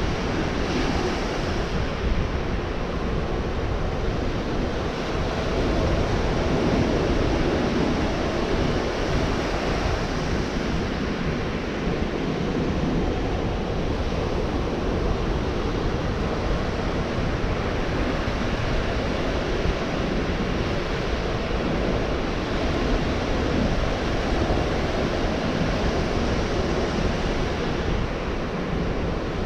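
Gulf of Mexico surf breaking and washing onto the beach in a continuous wash that swells and eases slowly.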